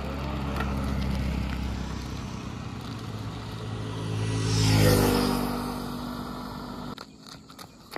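A motorcycle rides past: its engine grows louder as it approaches, is loudest about five seconds in, then drops in pitch and fades as it moves away. The sound cuts off abruptly about seven seconds in, leaving a few faint clicks.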